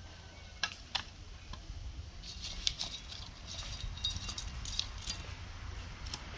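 Dry firewood sticks clacking and knocking against each other and the concrete blocks as they are handled and laid into a fire hearth: a run of irregular sharp clacks, bunched in the middle, over a steady low rumble.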